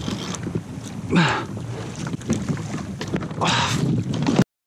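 Wind buffeting the camera microphone, with two short strained grunts from a man fighting a heavy fish on rod and reel. Each grunt drops in pitch. The sound cuts out briefly near the end.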